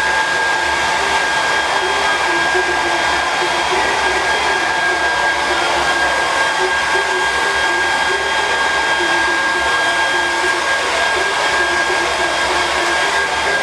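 Handheld hair dryer running steadily: an even airy rush with a thin whine.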